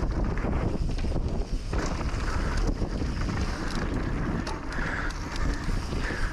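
Wind rushing over an action camera's microphone as a mountain bike rides fast down a dirt trail, with the steady rumble of the tyres on the dirt and scattered sharp clicks and knocks.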